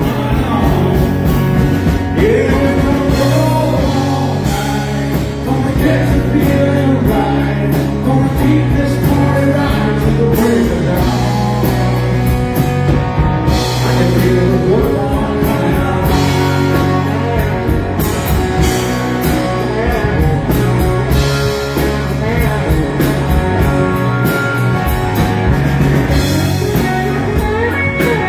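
A live rock band playing: two electric guitars, electric bass and a drum kit.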